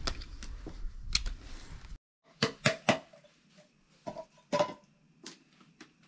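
Food containers and utensils being handled: a run of sharp clinks and knocks, each with a short ring. A low rumble stops abruptly about two seconds in, just before the clinks begin.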